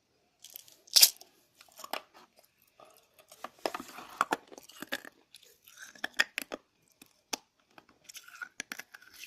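Mouth chewing hard sugar pearls: irregular crunches and small cracks, with one sharp crack about a second in.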